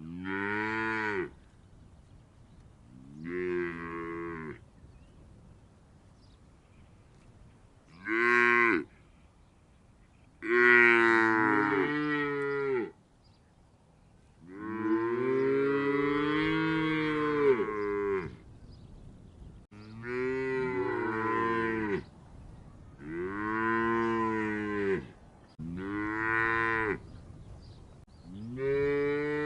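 Cow mooing repeatedly: about nine separate moos of varying length, the longest lasting around four seconds, each rising and then falling slightly in pitch.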